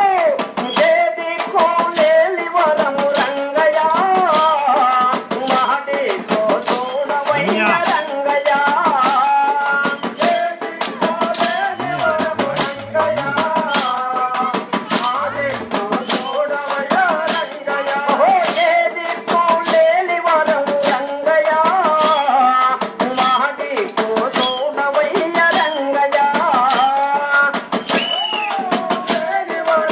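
Devotional bhajan music: singing over a steady beat of hand-held rattling, jingling percussion, about two strokes a second.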